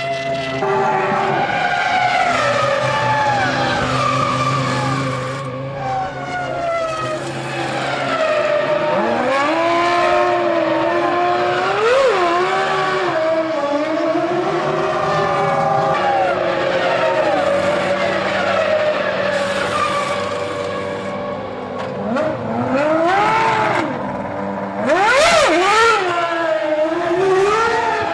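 Formula One cars' 3-litre V10 engines at high revs, the pitch climbing and dropping through gear changes as several cars pass in turn, with sharp rising-and-falling sweeps as cars go by close.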